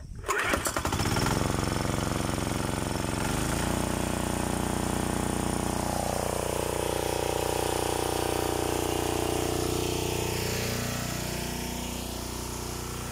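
A 7 hp single-cylinder diesel water-pump engine, recoil-started with a hard pull, catches at once and runs steadily. Its speed steps up a few seconds in and then holds, sounding a little quieter near the end.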